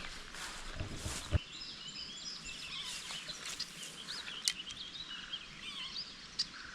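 Small birds chirping and singing over a steady outdoor background hiss, with a brief rustle and a sharp click about a second in.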